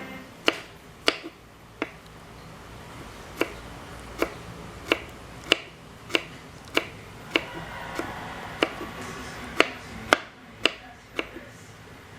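A knife chopping on a cutting board: a run of sharp, evenly paced strokes, roughly one every two-thirds of a second, with a short pause about two seconds in.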